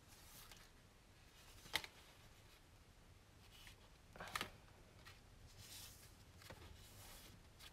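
Quiet handling of black cardstock on a cutting mat: faint paper rustles, with one sharp tap a little under two seconds in and a short rustling scrape about four seconds in.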